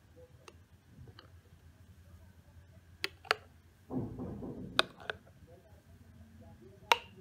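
A metal spoon clinking against a ceramic coffee cup while stirring and lifting thick creamy coffee: about five sharp clinks, two close together about three seconds in, two more about five seconds in and one near the end, with a softer scrape between them.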